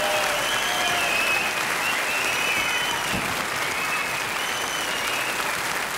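Studio audience applauding steadily after the song, with whistles sliding up and down above the clapping.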